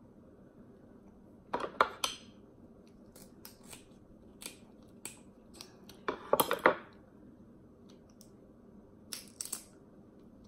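Crab leg shells cracking and snapping as they are broken open by hand: a few sharp cracks in short clusters, the loudest about six seconds in, with small clicks between.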